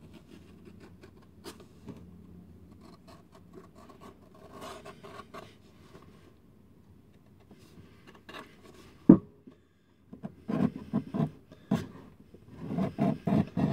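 Hand knife paring the edge of a leather insole on a shoe last to feather it: a series of short scraping cuts, faint at first and louder near the end at about four strokes a second, with one sharp knock about nine seconds in.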